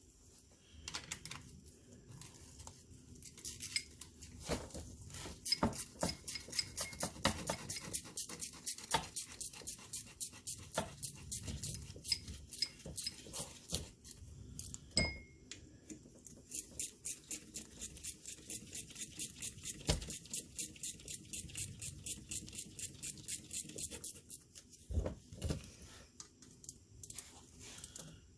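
Ratchet wrench clicking in long runs of quick, even strokes, about three clicks a second, with a short break near the middle and a few looser metal knocks, as bolts are worked on the car's air-conditioning compressor.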